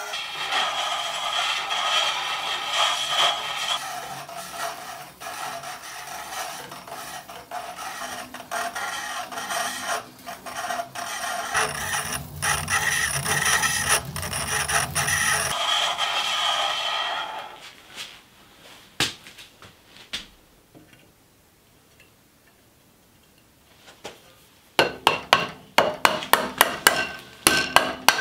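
Hand-cranked, wooden-framed band saw running, its iron wheels and blade turning with a steady mechanical noise that stops after about 17 seconds. Near the end a mallet strikes repeatedly in a quick, even series of blows.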